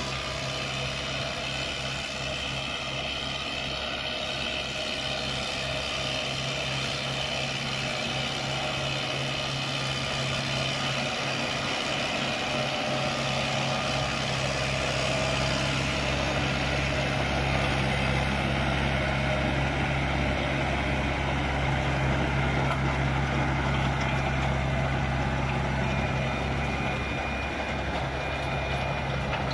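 Kubota M108S tractor's four-cylinder turbo-diesel running steadily while pulling a PTO-driven power harrow, growing louder as it comes close and easing a little as it moves away near the end.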